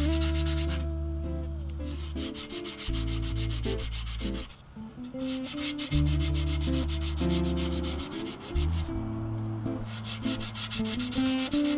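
Sandpaper rubbing back and forth over a steel surface, smoothing out light scoring left by a damaged bearing, with music playing in the background.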